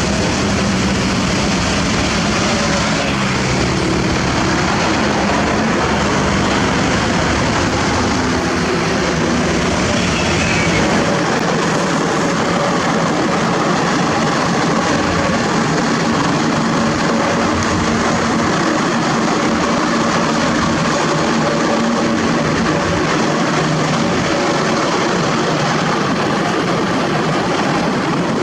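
Heavy diesel engines running steadily, their pitch shifting now and then, with a brief rising whine about ten seconds in.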